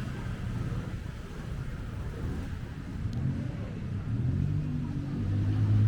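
A motor vehicle's engine running with a low hum that grows louder near the end, over a steady low street rumble.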